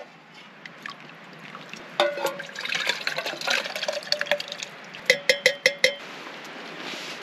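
Hot broth scooped from a pot with a metal mug and poured into a steel pot, the mug clinking and ringing against the pot. About five seconds in come five quick ringing metal taps.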